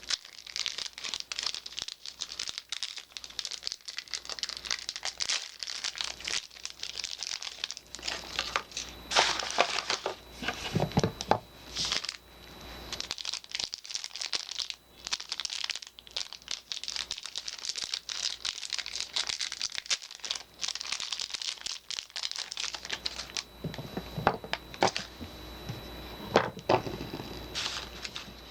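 Soap packaging being unwrapped by hand: wrapping crinkling and crackling with some tearing, and a few heavier knocks about eleven seconds in and again near the end.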